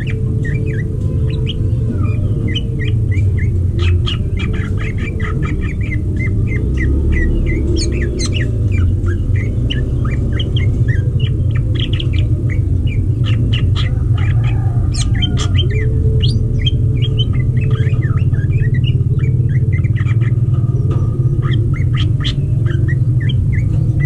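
Green leafbirds (cucak ijo) chirping in quick, short notes, some harsher squawks among them, continuing throughout, over a steady low rumble.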